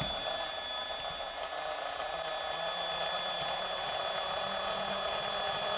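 Small handheld electric drill with a gold twist bit running steadily as it drills out the rivet in a die-cast toy car's metal base, one even high-pitched whine.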